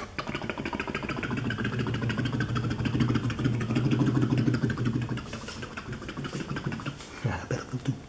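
A man imitating a helicopter with his mouth: a steady low buzz chopped into a rapid pulsing flutter. It is strongest for about five seconds, then weaker.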